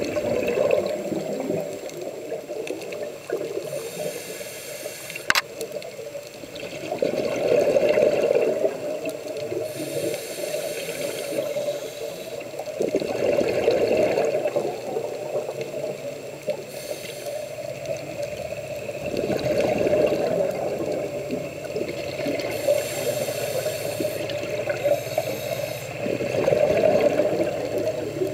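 Scuba diver breathing through a regulator underwater: a hissing inhale, then a louder, bubbling exhale, repeating about every six seconds.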